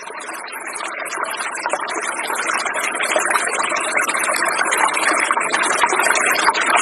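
Rushing river water, growing louder over the first few seconds and then steady, with a dense high sizzling layer above it.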